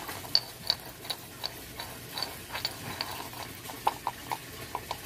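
A dog licking and gnawing at a frozen peanut butter treat, making irregular sharp little clicks, about two or three a second.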